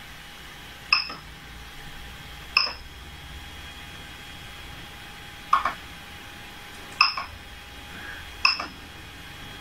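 Creality Ender 3 Pro's control knob being pressed, the printer's buzzer giving a short high beep with a click at each press. There are five presses, a second or two apart, while a print is started from the memory card.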